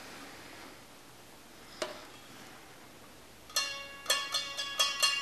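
Canjo, a one-string can banjo, being plucked: a run of single ringing notes starts about three and a half seconds in, after a faint rustle and a single knock about two seconds in.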